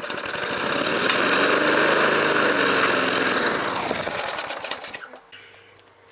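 Briggs & Stratton Sprint 375 lawnmower engine catching on a restart and running briefly, its pitch rising then sagging as it fades out and dies about four to five seconds in. It is struggling after berries were fed into it, which it doesn't like.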